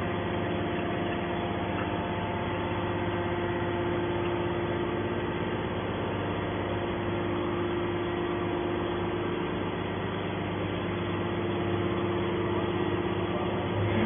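Hydraulic power unit of a 250-ton metal scrap baler running steadily, a constant hum with a steady tone, as the ejector ram pushes a compressed scrap bale out of the press chamber.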